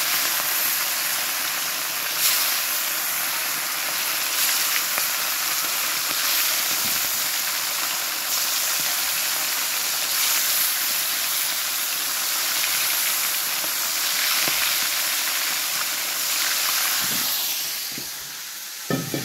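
Small fish, lambari, frying in a pan of hot oil: a steady sizzle with a few faint crackles, easing off somewhat about a second and a half before the end.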